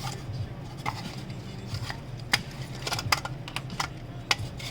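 Small hard parts and tools being handled on a workbench: a dozen or so irregular light clicks and taps, over a steady low hum.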